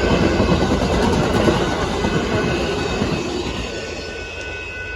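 Amtrak Texas Eagle passenger train rolling past, a dense rumble and clatter of wheels on rail that fades steadily as the train draws away, leaving a faint high whine from the rails near the end.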